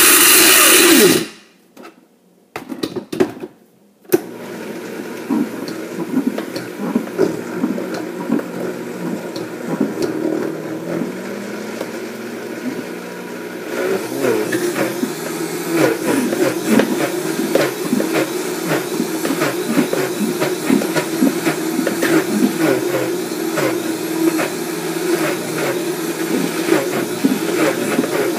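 Vitamix high-speed blender crushing frozen pineapple chunks while the tamper pushes them into the blades. It runs very loud for about a second, stops for a couple of seconds, then runs again with a steady hum and many rattling knocks from the frozen pieces, growing busier and louder about halfway through.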